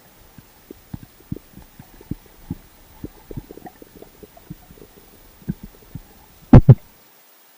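Muffled underwater knocks and clicks, heard through a waterproof camera housing, come scattered and low for several seconds. Then two loud thumps land close together about six and a half seconds in, and the sound drops almost to nothing.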